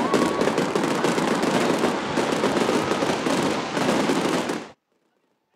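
Fireworks going off in a dense, rapid crackling barrage that cuts off suddenly near the end.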